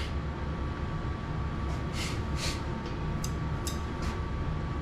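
A kitchen fan's steady low hum, with a faint steady tone, and a few short hissing scrapes from chopsticks working in a frying pan of curry during the second half.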